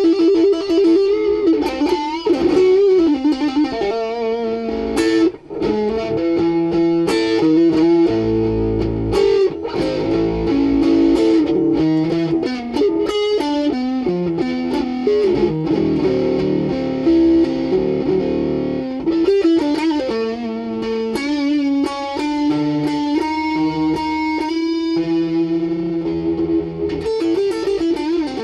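Homemade wine-box electric guitar (VinBox Estandar) played through an amplifier, picking a blues line with bent, wavering notes and a brief break about five seconds in.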